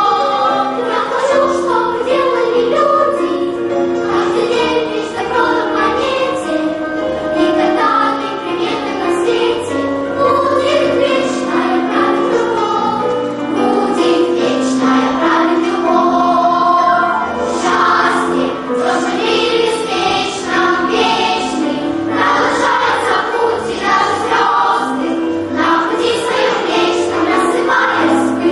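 Junior children's choir singing a song in Russian, the voices moving together in sustained sung lines.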